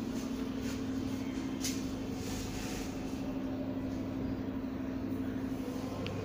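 Steady mechanical hum with one constant low drone, holding an even level throughout.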